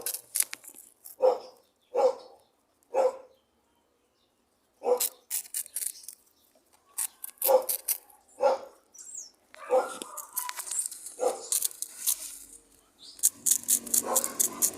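Small dog barking in short single barks, about eight spread out with pauses, mixed with sharp crunching clicks as it eats a crunchy snack.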